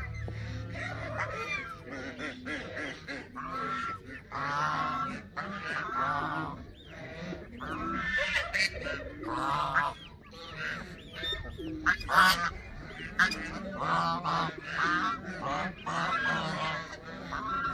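Several geese honking repeatedly, their calls overlapping, loudest about twelve seconds in.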